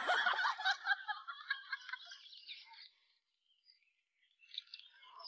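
Birds chirping, a busy tangle of short high calls that dies away about three seconds in; after a brief hush the chirping starts again near the end.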